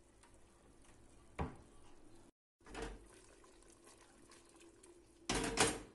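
Quiet kitchen sounds over a faint steady hum: a light knock about a second and a half in, then near the end a brief clatter as the stainless steel pot of figs in syrup is moved on the hob.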